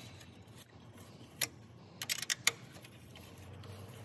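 Sharp clicks of small metal fender hardware (bolts and washers) being handled: a single click about a second and a half in, then a quick run of clicks around two seconds.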